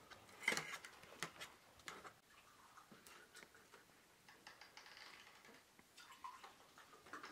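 Faint, scattered light clicks and taps of a fork and dishes on a metal serving tray during a meal, the loudest about half a second in.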